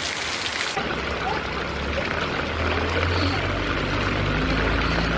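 Rain hissing for under a second, then an abrupt cut to a motor running low and steady under rushing, splashing water.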